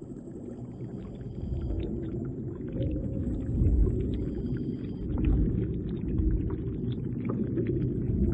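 Underwater sound of a scuba diver breathing through a regulator: exhaled bubbles rumbling in waves, with a scatter of short clicks and a faint hiss that comes and goes with the breaths.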